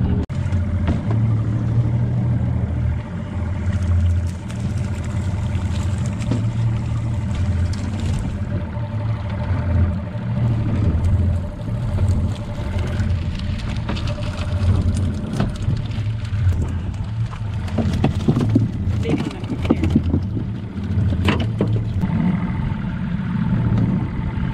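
Wind buffeting the microphone over a small outboard motor idling. In the second half come sharp clanks and rattles as the wire catfish net knocks against the aluminium boat's side.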